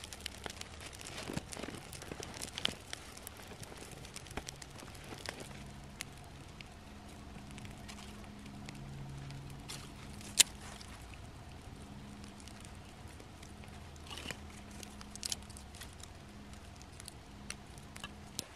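Small kindling fire crackling, with scattered sharp pops and clicks. The loudest comes about ten seconds in, as split sticks of kindling are laid on it.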